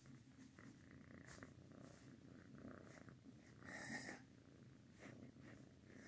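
Kitten purring faintly and steadily while being petted, with a brief rustle about four seconds in.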